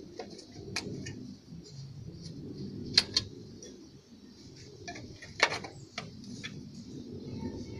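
Metal hand tools clinking against the fuel-injection fittings of a diesel engine: a handful of sharp metallic clinks, a close pair about three seconds in and the loudest about five and a half seconds in, over a low background rumble.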